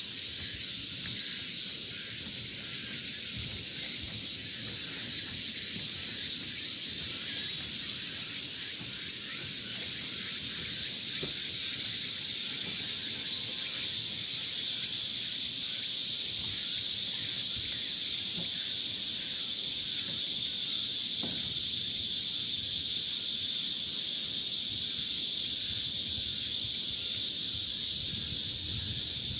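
Summer insect chorus, a dense steady high-pitched shrilling of insects in the trees that grows louder about a third of the way in and holds.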